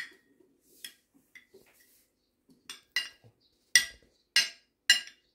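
Metal spoon clinking against a ceramic soup plate during eating: a string of sharp, ringing taps about once a second, the loudest ones in the second half.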